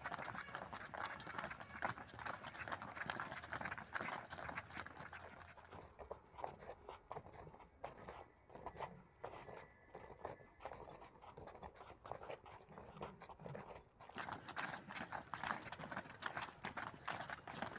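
Many people's feet patting on a paved path as a group jogs in place, a faint, rapid, uneven patter of footsteps.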